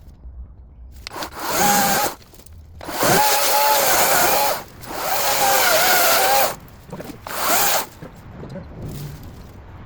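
Ego battery-powered electric chainsaw run in four bursts of the trigger, its motor whining up to speed each time. The two longer bursts hold for about a second and a half, with the pitch wavering slightly.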